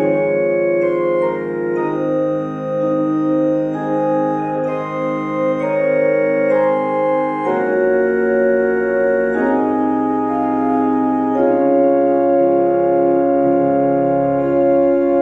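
Organ music: slow, held chords that change every second or so, with a shift in harmony about halfway through.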